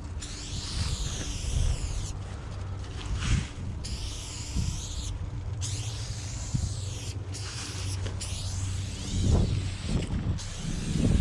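Aerosol spray paint can hissing in a run of bursts, each one to two seconds long with brief breaks between them, as paint is sprayed onto a wall. A low rumble runs underneath.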